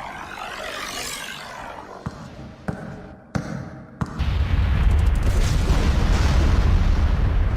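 Sound-effect samples played one after another: a swirling, sweeping sound, then a few separate thuds, then a loud low rumble from about four seconds in.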